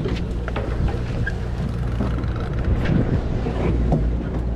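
A boat engine running with a steady low hum, with wind on the microphone and a few light clicks and knocks over it.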